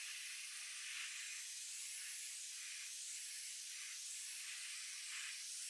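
Compressed-air paint spray gun hissing steadily as it sprays paint in a couple of circles, spreading a light blending coat over a wide area. The gun's air is set low, to about half an atmosphere.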